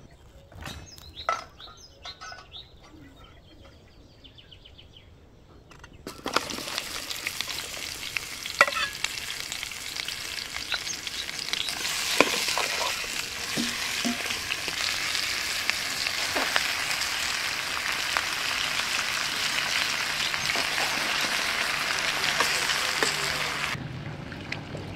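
Sliced onions sizzling in hot vegetable oil in a metal pan, starting suddenly about six seconds in, with occasional clinks of a metal ladle stirring. The sizzling cuts off just before the end.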